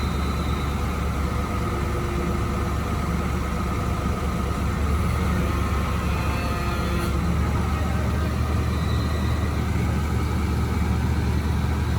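Crane's engine running steadily with a low, even drone.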